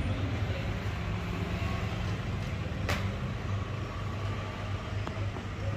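A steady low engine hum with a noisy rumble, broken by one sharp click about three seconds in.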